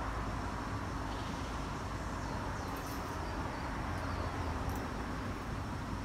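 Steady street ambience: a continuous low rumble with hiss, and a few faint light clicks near the middle.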